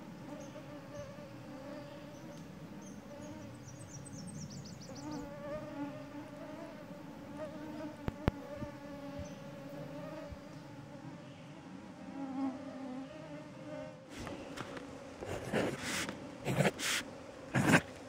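Mosquitoes whining close to the microphone: a steady drone of several slightly wavering tones. A brief high bird trill comes about four seconds in, and several loud scuffs near the end.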